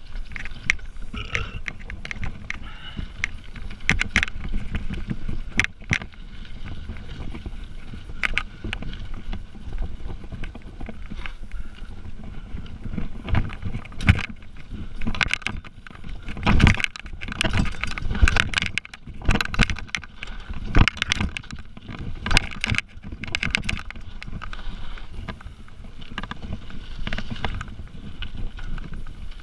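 Mountain bike descending a dirt trail at speed: a steady rush of tyre and wind noise with frequent rattling knocks and clatters from the bike and chain as it rolls over rocks and bumps. The clattering is busiest in the middle of the stretch.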